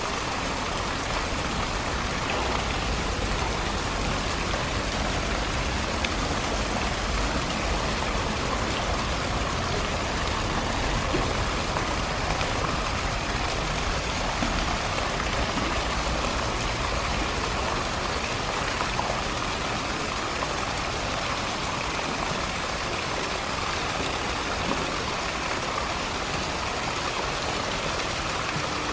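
Steady rush of running water in a polar bear's pool, even and unbroken throughout.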